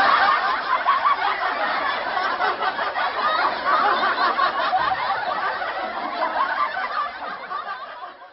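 Crowd laughter, like a sitcom laugh track, loudest at first and slowly dying away over several seconds.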